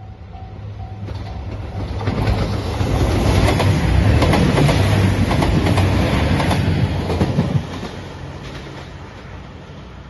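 A JR Shikoku 2700 series diesel limited express passes at speed: a rising rumble with wheels clacking over the rail joints, which drops suddenly about three quarters of the way in as the last car goes by. At the start, before the train drowns it, a level crossing warning bell dings about twice a second.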